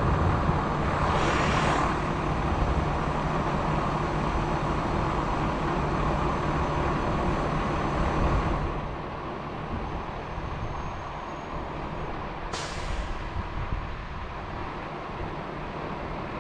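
Truck crane's diesel engine running steadily, louder at first and easing off about eight and a half seconds in. A short hiss comes near the start, and a sharp hiss about twelve seconds in fades out quickly.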